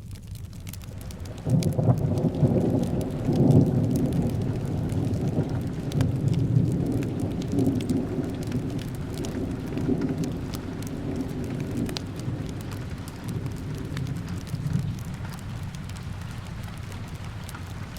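Steady rain with a long roll of thunder that starts about a second and a half in, is loudest in the first few seconds and slowly rumbles away.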